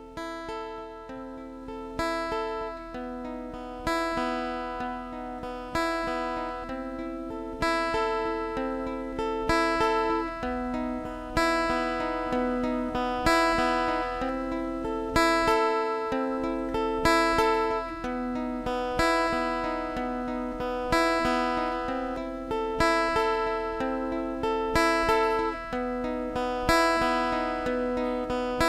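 Live acoustic music, the instrumental opening of a song: acoustic guitar chords struck about every two seconds with a viola, growing louder over the first several seconds.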